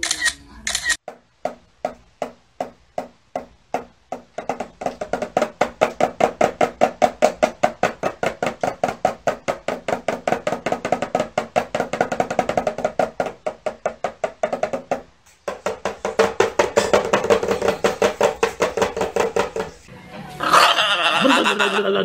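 White cockatoo beating a toy drum: single knocks about two a second at first, quickening after a few seconds into a fast, even roll of about five strokes a second that runs on with one short break. Near the end a short call with sliding pitch takes over.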